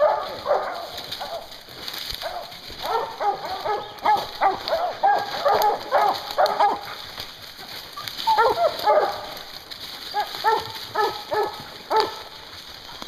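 Hounds barking in bursts of short, pitched barks with brief pauses between. The hunter takes this baying to mean the bear is treed.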